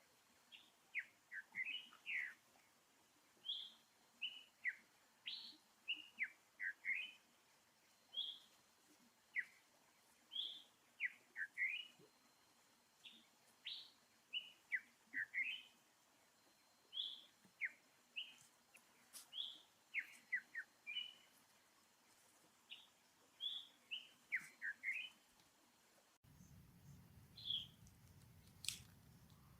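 Small birds chirping: short, quick, falling chirps repeated in irregular clusters of several a second. About 26 seconds in, a steady low hum joins them.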